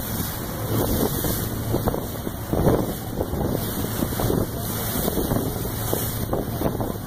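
Wind buffeting the microphone in irregular gusts over the steady low drone of a boat's engine running underway.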